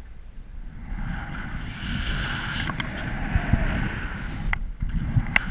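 Wind rumbling on the microphone, with a few sharp clicks about four and a half and five and a half seconds in.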